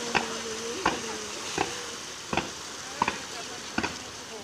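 Ground firework hissing and crackling as it sprays sparks, with sharp pops coming regularly, about one every three quarters of a second.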